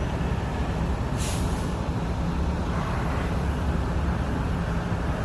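Diesel engine of a 65-ton mobile crane running steadily, with a short hiss of air released about a second in.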